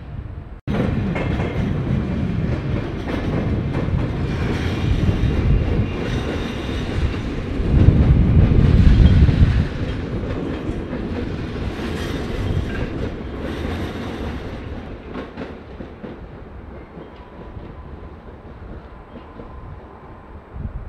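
A train running past on the station tracks, with the noise of its wheels on the rails. It comes in suddenly just after the start, is loudest about eight to ten seconds in, then fades away.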